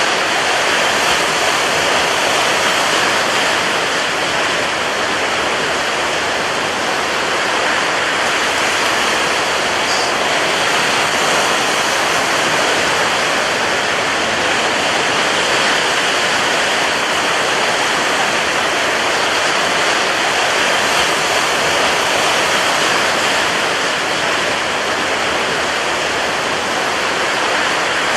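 Rough sea surf: a loud, steady rush of water noise with no separate wave breaks standing out.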